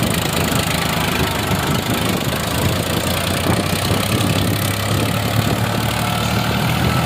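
Farmtrac 355 tractor's diesel engine running steadily under load as it pulls a soil-loaded trolley.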